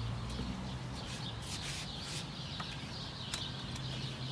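Small birds chirping in the background over a steady low hum, with a few sharp clicks.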